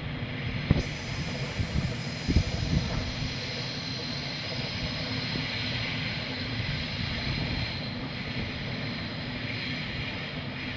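A small train running steadily, its engine giving a continuous low sound, with a few sharp knocks about one second and two and a half seconds in.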